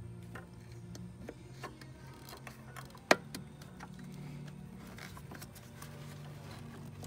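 Small clicks and taps of plastic parts as hands fit an RX-8 solenoid and its vacuum hose into place, with one sharper click about three seconds in, over a low steady hum.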